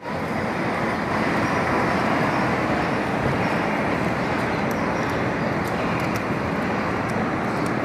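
Steady city street traffic noise, with a few faint clicks in the second half.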